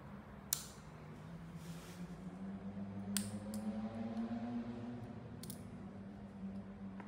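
An Insta360 X3 camera being handled: a few sharp clicks and taps, the loudest about half a second in, over a steady low hum.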